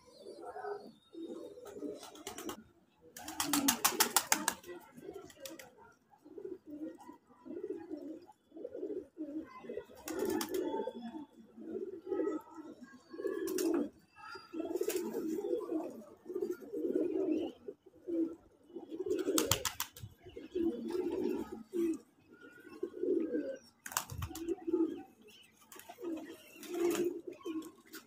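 Pigeons cooing, low coos following one another continuously. A short loud burst of rapid clicking about three seconds in.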